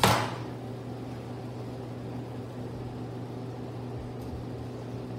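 Steady low mechanical hum of kitchen equipment, with a single sharp knock at the very start.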